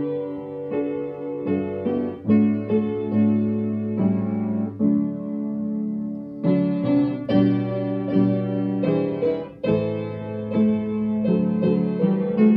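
Piano playing a hymn tune in full chords, a new chord struck about every second, with one chord held longer in the middle.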